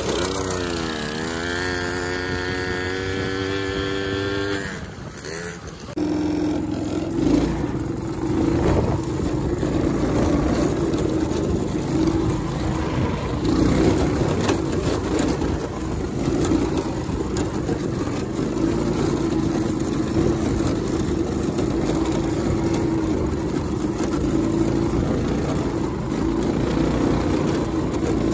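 Go-kart engine revving up, its pitch dipping and then climbing to a steady note, then after about five seconds running hard with knocks and wind noise as the kart bounces across rough ground.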